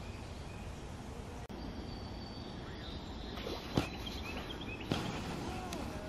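Woodland ambience over a steady low background rumble, with a few short bird chirps about halfway through and a few curved whistled bird notes near the end. Two sharp clicks stand out, one just before the chirps and one about a second later.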